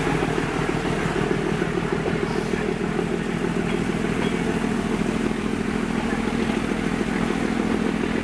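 YDM4 metre-gauge diesel locomotive's ALCO 251 engine working hard under load, a loud, steady, heavy throb.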